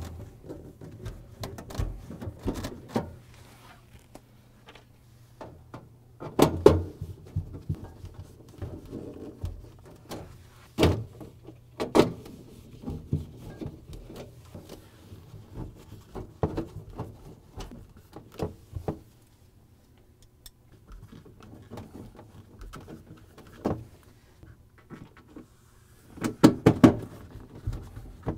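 Irregular clicks and knocks of a Phillips screwdriver driving screws into a refrigerator freezer's plastic back panel, with a few louder knocks among them.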